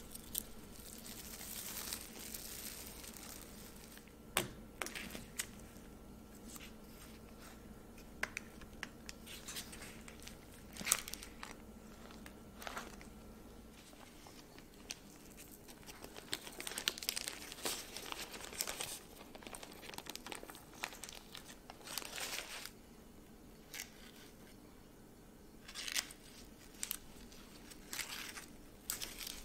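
Plastic cling film crinkling as it is pulled off a cake pan, then parchment paper rustling and crinkling as it is peeled away from the side of a baked cake. Scattered short rustles and light clicks throughout.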